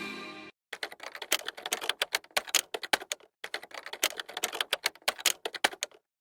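Rapid, irregular clicking like typing on a keyboard, with a short pause about halfway, after the last of the music fades away.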